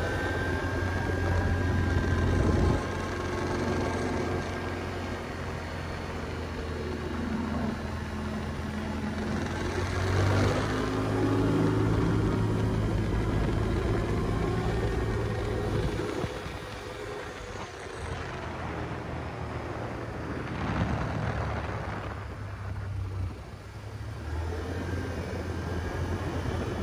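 ATV (quad) engine running and being revved, its pitch rising and falling several times and loudest about ten seconds in.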